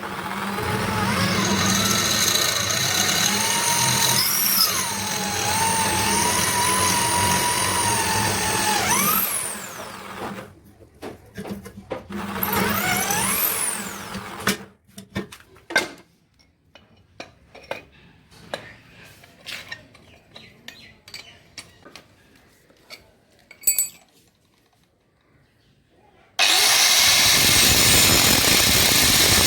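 An electric power tool runs for about nine seconds, its whine dipping and wavering in pitch as it is loaded, then runs again briefly. Scattered knocks and clicks of handling follow, and near the end a power tool starts up abruptly and runs steadily.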